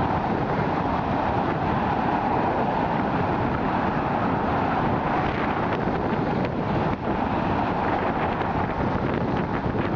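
Wind buffeting the microphone over a steady drone of road traffic.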